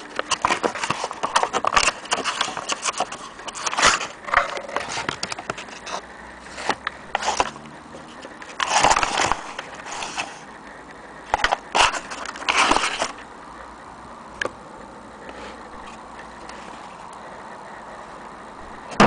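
Old paper lining inside a wooden pine gun case rustling and crinkling under a hand, with irregular scrapes and small knocks. The handling comes in bunches, then dies down about two-thirds of the way through, leaving one faint tap.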